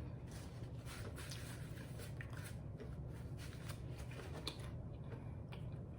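Faint chewing and mouth clicks of someone eating a quesadilla, a few soft smacks over a steady low hum.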